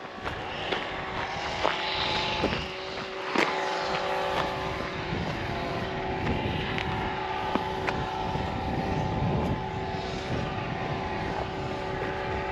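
Footsteps crunching on a stony footpath with wind buffeting the microphone, over a steady multi-tone droning hum.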